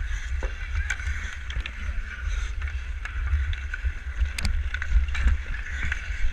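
Ice hockey skates scraping across outdoor pond ice, with sharp clacks of sticks on the puck several times, the loudest about four seconds in, over a steady low rumble.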